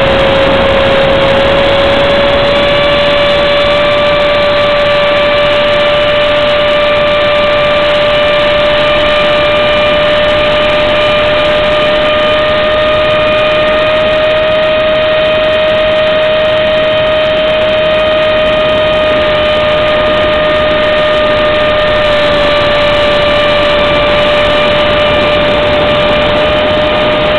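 Electric power system of a foam RC F-18 jet, running on a 4S battery, whining steadily in flight over a rush of air noise, heard from a camera on the airframe. The pitch dips slightly right at the start and then holds nearly level.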